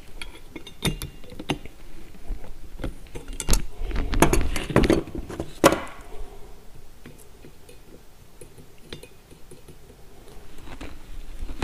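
Pliers and a stainless steel cotter pin clinking and scraping against a steel quick-hitch casting as the pin is clenched over. Scattered sharp metal clicks, with a busier clatter a little before the middle.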